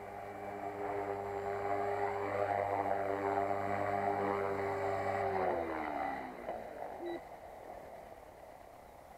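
Electric HK450 PRO flybarless RC helicopter (a 450-size T-Rex clone) hovering low with a steady motor and rotor whine. About five seconds in the power is cut after landing, and the whine falls in pitch and fades as the rotor spools down.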